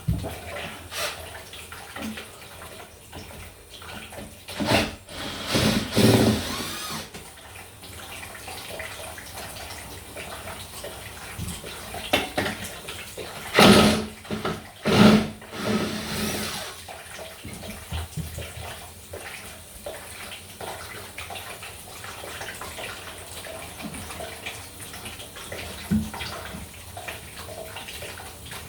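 Water running steadily from a supply that the stop cock has not fully shut off. Loud knocks and clatter from handling pipe fittings come in two clusters, a few seconds in and again around the middle.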